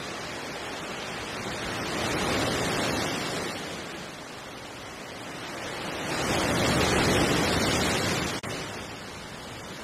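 Sea waves washing ashore, a steady rushing that swells twice, about two seconds in and again around seven seconds in.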